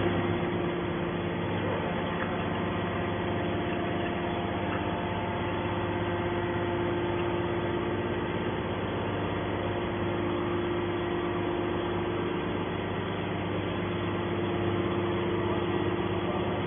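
Hydraulic metal baler's motor and pump running with a steady hum, its pitch and level unchanging.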